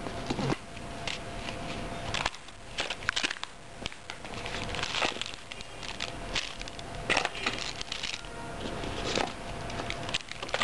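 Hands handling cardboard packaging and a crinkly plastic wrapper: irregular rustling, crinkling and light knocks.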